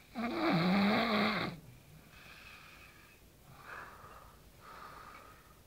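A sleeper snoring: one loud, rough snore with a wavering low pitch lasting over a second, just after the start, followed by three quieter snoring breaths.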